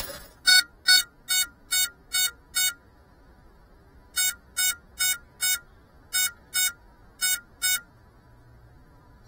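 A crashed FPV drone's onboard beeper sounds short, even, electronic beeps in groups: six, a pause, four, then two pairs. The beeps signal the downed quad so it can be found.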